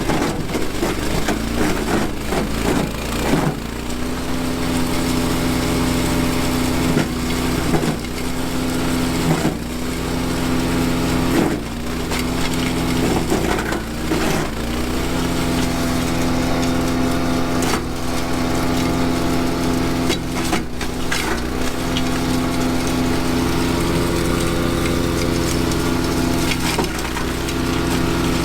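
Honda-engined wood chipper running while branches are fed in and shredded, with crackling and splintering wood. The engine note sags briefly and recovers several times as the cutter bites into each branch.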